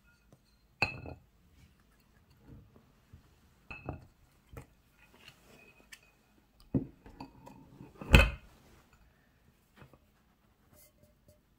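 Aluminium cake pan and ceramic plate knocking and clinking against each other and the table as the cake is turned out onto the plate: several light knocks, then one louder thud about eight seconds in.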